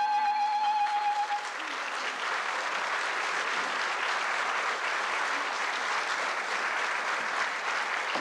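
A woman's held sung note ends about a second in, and audience applause follows, steady to the end.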